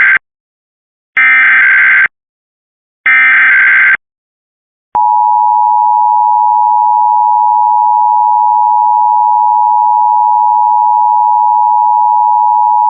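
Emergency Alert System SAME header: the end of one burst of digital data tones, then two more bursts of about a second each, about a second apart, carrying the encoded alert. About five seconds in, after a click, the EAS attention signal starts: a steady two-note tone of 853 and 960 Hz held for about eight seconds, the signal that precedes the test's voice message.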